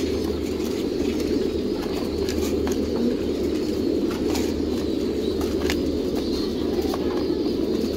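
A flock of caged domestic pigeons cooing together in a constant low chorus, with scattered sharp clicks through it.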